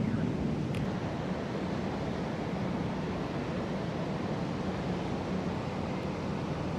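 The tail of a thunder rumble dies away over the first second. After it comes a steady, even, low rumbling background noise with no distinct events.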